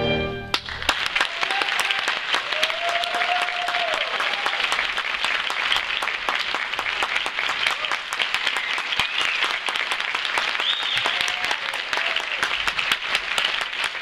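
A big band's held final chord cuts off about half a second in, then an audience applauds steadily.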